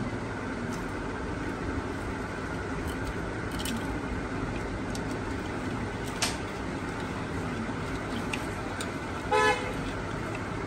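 Steady street and workshop background noise, cut by a single short vehicle horn toot about nine seconds in, the loudest sound here. A sharp click comes a little after six seconds.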